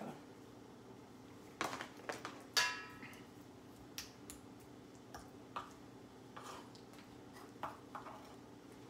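Scattered light clicks and taps as a black-pepper shaker and a utensil are handled over salmon fillets on a wooden cutting board. A faint steady hum runs underneath.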